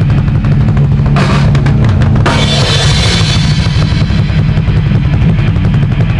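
Rock band playing a heavy metal song live: a drum kit with a fast bass drum and cymbal crashes over a steady low bass line. A bright cymbal wash comes in about a second in.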